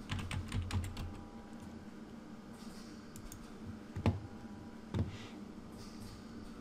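Typing on a computer keyboard: a quick run of keystrokes in the first second, then two louder single clicks about four and five seconds in.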